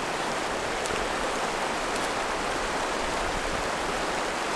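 Steady rush of a shallow river flowing over rocks.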